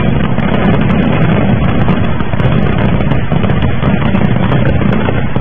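A pile of firecrackers going off together: a loud, steady rush of bangs and crackling with no break.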